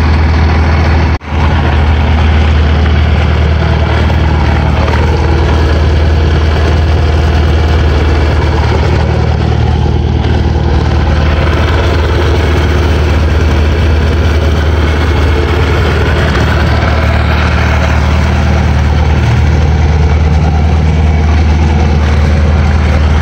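Mercruiser 3.0L four-cylinder sterndrive engine idling steadily while run on flushing earmuffs fed by a garden hose, with cooling water splashing from the exhaust onto the ground. There is one brief break in the sound about a second in.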